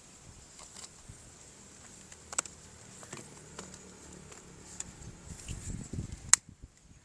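Faint handling noise with a few scattered sharp clicks, the loudest about six seconds in, after which the sound cuts off abruptly.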